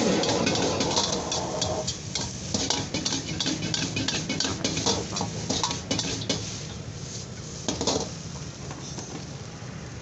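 Fried rice stir-fried in a wok over a gas burner: a dense rush of tossing and frying for the first two seconds, then a metal ladle scraping and clanking against the wok in quick strokes, with a few last knocks near 8 s before it goes quieter.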